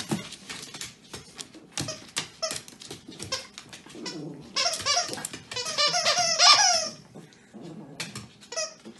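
Small dog playing with a cloth toy on a hardwood floor: quick clicks and taps from its claws and the toy, and a run of high squeaking sounds from about four to seven seconds in.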